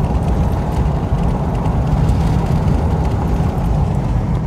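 Steady low rumble of a pickup truck driving at road speed, its tyre and engine noise heard from inside the cab.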